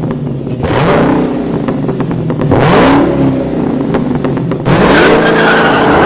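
Car engine revving hard several times, its pitch climbing in a new rise about every two seconds, with a high squeal near the end.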